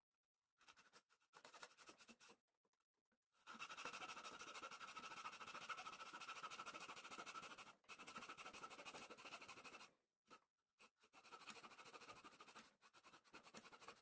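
Small fine-toothed hand saw cutting thin wood on a model ship's hull frame with quick back-and-forth rasping strokes. The strokes come in several runs with short pauses between them; the longest run lasts about four seconds.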